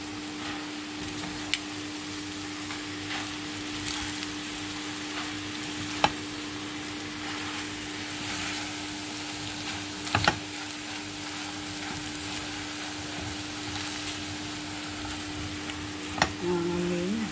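Shrimp, scrambled egg and leek sizzling in a frying pan while a spatula stirs and scrapes through it. The spatula knocks sharply against the pan several times, over a steady low hum.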